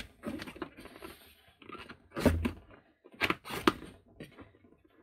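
Rubber bellows being pressed and pulled by hand into the lip of a robotic mower's plastic chassis: irregular rubbing and scraping scuffs, the loudest a little after two seconds in and again around three and a half seconds.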